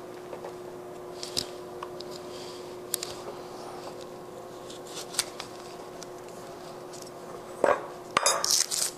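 A hand stripping tool clicking and scraping as it cuts and peels the plastic sheathing off Romex electrical cable, with a few sharp clicks and then a louder run of scraping and rustling near the end. A steady hum underneath.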